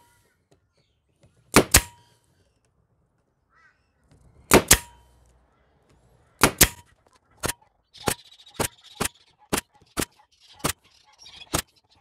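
Air-powered narrow-crown stapler driving staples into wooden beehive frame bars, each shot a sharp crack. The first three shots come a couple of seconds apart, each a quick double crack; then comes a faster run of single cracks about two a second.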